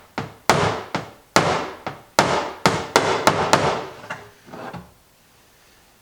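Hammer blows driving a rivet on a plastic compost tumbler's lid ring: about ten sharp strikes in quick succession, then two lighter taps, then they stop. The rivet is bent, which is why it will not drive in.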